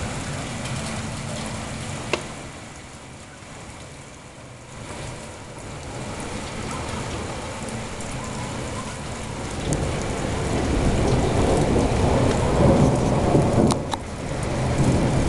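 Steady rain falling outside a window, with a single sharp tick about two seconds in. From about ten seconds in, a low rumble of distant thunder swells and rolls on, following a lightning flash.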